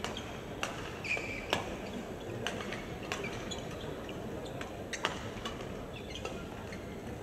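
Badminton hall ambience between points. Sporadic sharp taps of rackets hitting shuttlecocks on neighbouring courts, about five in all, come over a steady hall background, with a few brief high shoe squeaks on the court mat.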